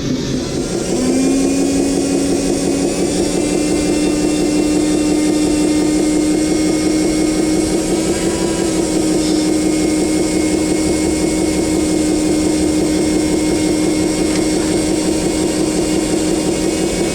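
Radio-controlled excavator's electric drive running with a steady whine. The pitch steps up slightly about a second in, then holds level.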